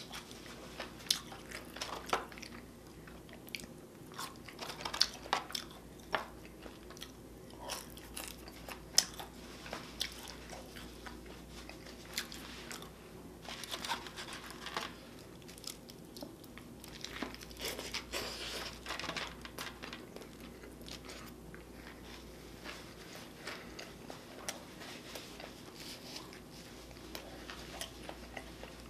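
A person chewing and biting food close to the microphone, with frequent short, sharp mouth clicks at an irregular pace.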